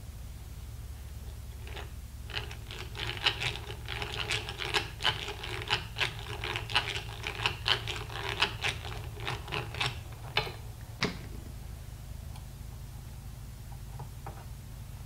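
Hand-cranked eggbeater drill turning, its gears clicking and rattling rapidly as the bit bores a screw hole into the wooden rifle stock for the trigger guard. It starts about two seconds in and stops about eleven seconds in, followed by a few light taps.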